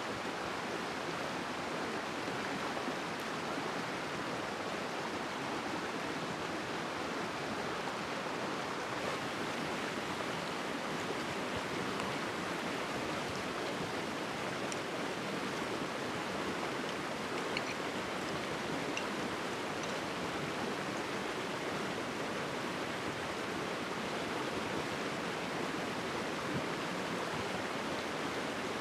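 Stream water rushing steadily over rocks, a constant even flow with no change in level.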